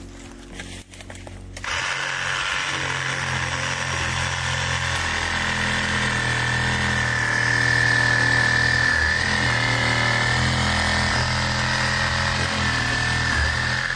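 Chainsaw running steadily at high revs, starting abruptly about two seconds in, while trees are being cut away around a stuck vehicle.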